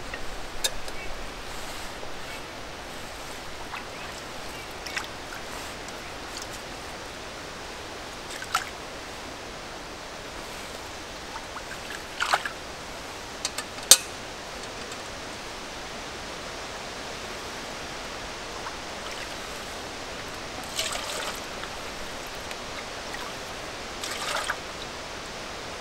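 A small forest stream trickling steadily, with a few brief clicks and rustles from close by. The sharpest click comes about halfway through.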